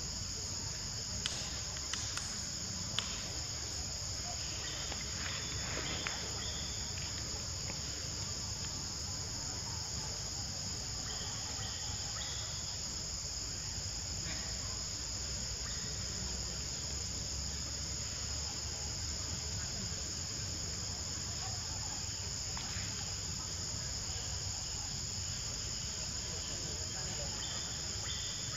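Steady, high-pitched insect chorus, with a low rumble underneath and a few sharp clicks in the first three seconds.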